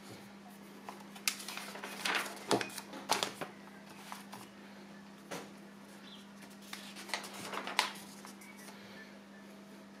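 Paper pages of a printed instruction manual being handled and turned by hand, in several short rustling bursts. The loudest come about two to three seconds in and near eight seconds. A steady low hum runs underneath.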